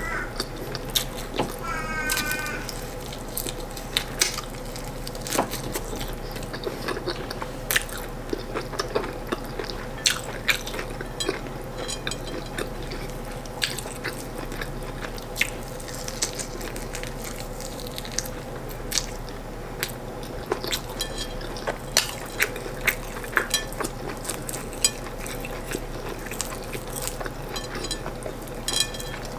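A person eating by hand, close-miked: chewing, smacking and wet mouth clicks through corn fufu and stewed chicken, in scattered sharp bursts. A faint steady hum runs underneath.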